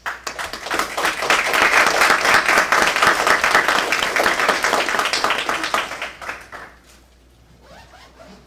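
Applause from an audience and the panelists, a dense patter of many hands clapping that builds over the first second or so, holds, then dies away about seven seconds in.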